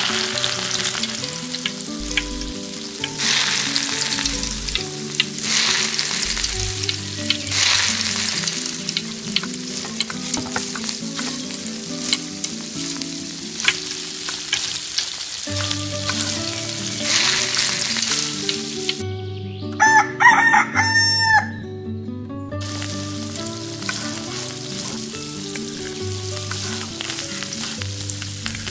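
Steady crackling hiss of food sizzling in hot oil, with a rooster crowing once about twenty seconds in.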